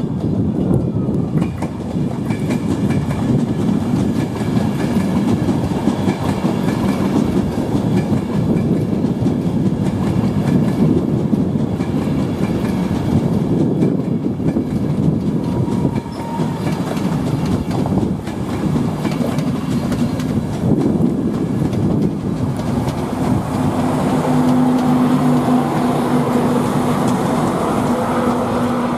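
A passenger train running through the station, its wheels rumbling and clicking over the rails; in the last quarter a steady low hum joins in.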